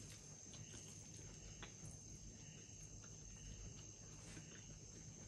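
Near silence: faint chewing, with a few soft clicks, over a steady high-pitched whine.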